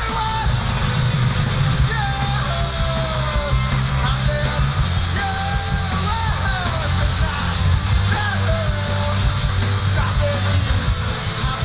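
Live rock band playing punk rock, with the lead singer shouting and singing into a microphone over drums and guitars.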